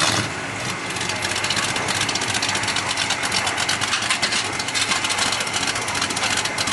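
Chevelle SS engine idling with a rapid, even pulse, as the car sits on the trailer ready to come down the ramps.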